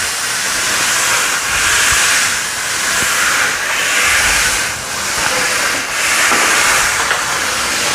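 Hoover Steam Complete Pet steam cleaner's steam jet blasting steam in a loud, steady hiss that swells and eases every second or so.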